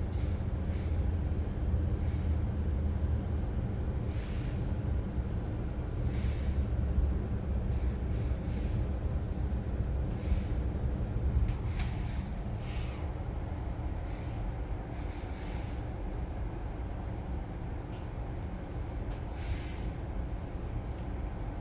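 Regional electric train running, heard from on board: a steady low rumble of wheels on track with a faint hum, and short hissing clicks every second or two. It grows a little quieter in the last few seconds.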